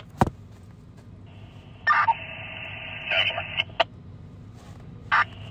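Fire radio scanner: two squelch clicks, then the channel keyed open for about two seconds of hiss with short garbled bursts, and one more brief burst near the end.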